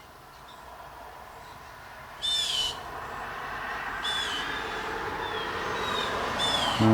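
Blue jays calling: one loud, harsh, falling call about two seconds in, then four fainter calls of the same shape about a second apart. Under the calls, a rushing background noise grows steadily louder.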